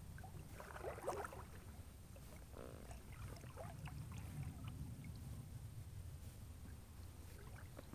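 Inflatable kayak being paddled slowly: soft splashes and drips of water from the paddle, in small clusters, over a steady low rumble.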